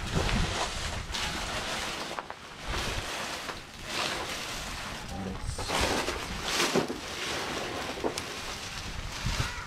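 Outdoor ambience of wind gusting on the microphone, with rumbling swells that rise and fall and faint indistinct voices in the background.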